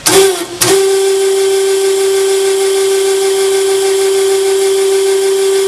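Electric tilt drive of a Pandjiris 30-6AB welding positioner starting up and then running at a constant speed, a steady hum as the table tilts up from flat. A brief uneven start-up settles into the steady tone within the first second.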